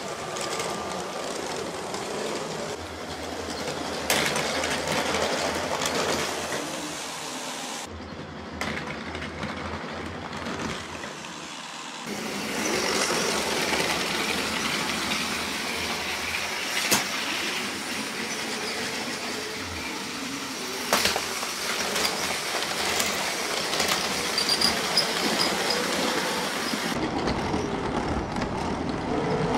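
Motorized Lego-brick model of the RRX Rhein-Ruhr-Express train running on plastic Lego track: a continuous rattle of motor and wheels, with a few sharp clicks. The sound changes abruptly several times between edited takes.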